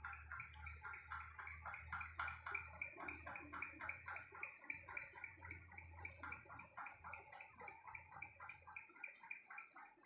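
Budgerigar giving a fast, even run of short clicking pulses, about four or five a second. A low hum runs underneath and stops near the end.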